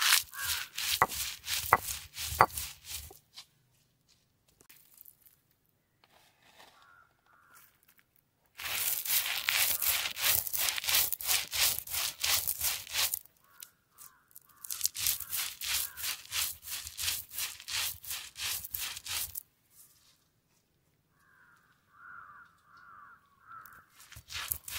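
Whole coriander seeds and dried red chillies being crushed by hand with a stone roller on a flat grinding stone: a fast rasping, crunching scrape, stroke after stroke, in several spells with pauses between. Crows caw in the pauses.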